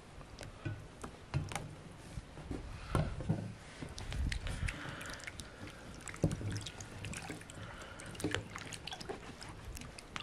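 Hands washing tomatoes and green peppers in a basin of water: irregular splashing and dripping as the vegetables are rubbed, turned and lifted out.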